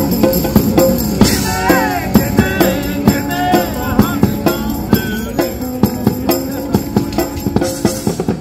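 Background music with a steady drum and tambourine beat under a melody.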